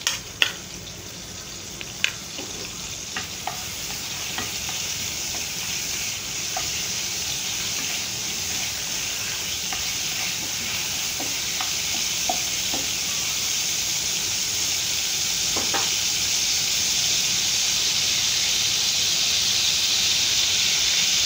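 Bay leaves and cumin frying in hot oil in a nonstick pan: a steady sizzle that grows gradually louder, with a few light clicks of a utensil against the pan in the first seconds.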